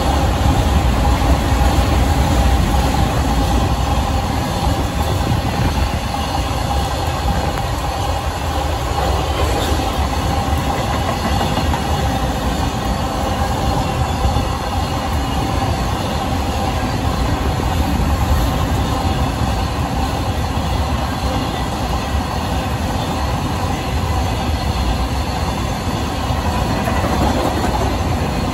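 Loaded freight hopper wagons rolling past at speed close by: a steady, loud rumble of steel wheels on rail with clickety-clack over the joints and a steady whine running through it.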